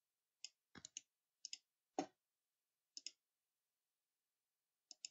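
Faint, scattered clicks of a computer mouse, several in quick pairs, over near silence.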